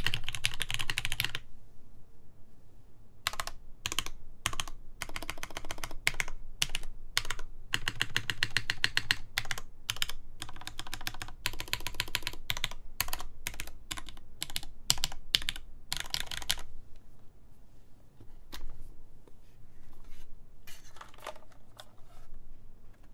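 Typing on a Mode Sonnet mechanical keyboard with lubed Gateron X switches, GMK keycaps and an aluminium plate. Fast runs of keystrokes come in bursts with short pauses, then thin out to a few scattered keypresses about two-thirds of the way in.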